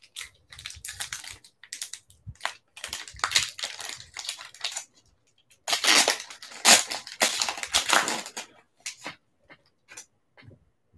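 Wrapper of a 2016-17 Panini Excalibur basketball card pack crinkling and tearing as it is ripped open and the cards are pulled out. The crinkling is loudest from about six to eight seconds in, and a few short crackles follow near the end.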